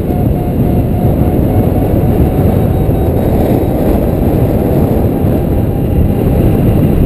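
Strong wind buffeting the camera microphone during paraglider flight: a steady, loud, low rushing.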